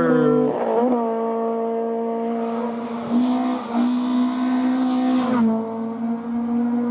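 Hillclimb race car engine running hard at high revs, its note held mostly steady with short dips and rises as it shifts gear. A rush of hiss joins it for about three seconds in the middle.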